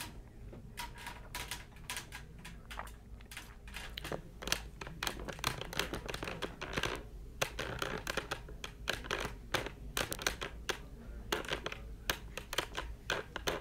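Irregular light clicks and ticks, several a second at times, against quiet room tone.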